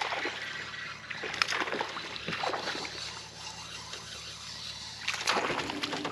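A small bass splashing at the surface as it is reeled to the boat and landed, with irregular splashes and handling noises, over a steady low hum.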